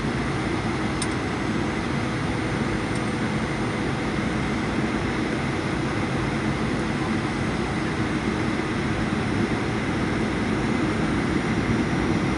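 Steady jet-engine and airflow roar heard inside the cabin of a Boeing 737-800 on final approach, with its CFM56 turbofans at approach power, growing a little louder near the end.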